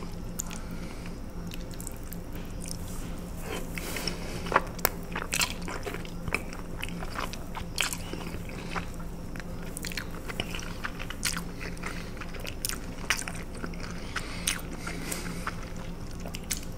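Close-miked open-mouth chewing of fettuccine alfredo: wet lip smacks and mouth clicks at irregular intervals, the ASMR smacking sound.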